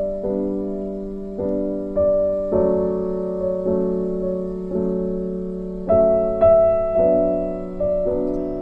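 Background music: slow, gentle piano chords, a new chord struck about once a second and each fading away.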